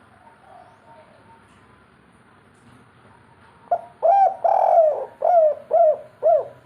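Spotted dove (tekukur) cooing: a phrase of about six coos starting a little past halfway, with a longer drawn-out note second in the series.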